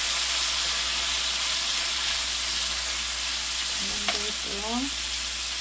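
Raw shrimp frying in a pan with a steady sizzle while being stirred with a wooden spoon. There is a light tap about four seconds in.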